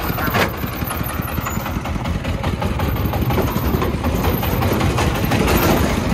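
Homemade three-wheeled công nông dump truck's single-cylinder diesel engine chugging as the truck drives off over rough dirt, getting louder from about four seconds in. A sharp clunk about half a second in.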